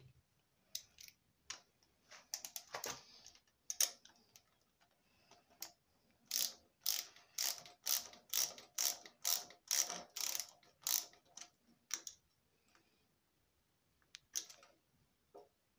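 Ratcheting spanner clicking as M6 P-clip nuts are tightened: a few scattered clicks, then a steady run of sharp clicks about twice a second through the middle, then a few faint clicks near the end.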